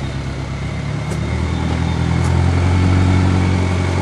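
An engine running steadily at a low, even hum, getting a little louder about a second and a half in.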